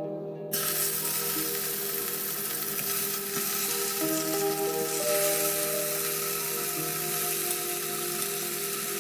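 Parboiled Korean radish slices sizzling in hot oil in a frying pan. The sizzle starts suddenly about half a second in and stays steady, with soft background music underneath.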